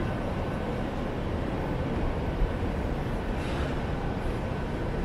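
City street ambience: a steady, low rumble of passing traffic.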